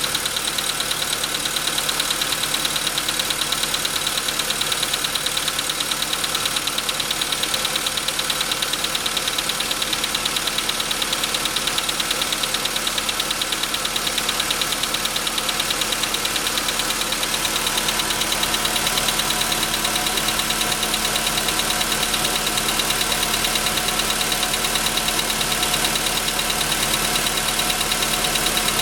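Volkswagen Jetta VI engine idling with a steady, rapid knock. The knock was traced to the pistons, which were replaced under warranty.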